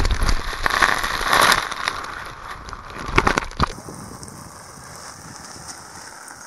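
A loud knock, then splashing water and crinkling wet plastic as a body slides along a wet plastic sheet right up to the microphone, lasting about three and a half seconds. It then cuts abruptly to a faint, steady outdoor background.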